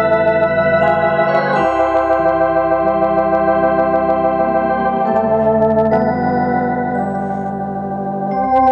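Drawbar organ playing held chords over a sustained bass line, the chords changing every second or few, with faint key clicks. The volume eases off a little near the end, then swells back up.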